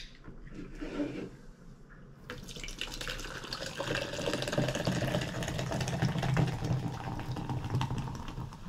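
A zero-sugar drink being poured into a cup: a short click, then a steady pour that starts about two seconds in and runs for about six seconds before tailing off near the end.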